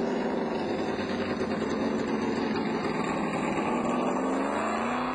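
Several car and truck engines running together as a convoy drives by, with an engine note climbing in pitch near the end.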